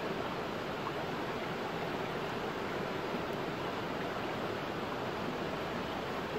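Steady rushing of a flowing stream, an even wash of water noise with no distinct events.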